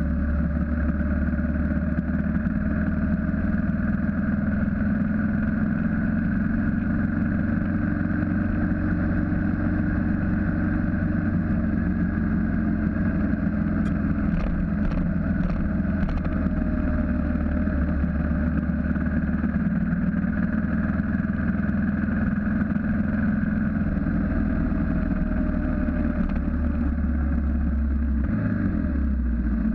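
BMW G650GS single-cylinder motorcycle engine running steadily while riding, heard on board with wind noise. A few light clicks about halfway, and the engine note changes near the end.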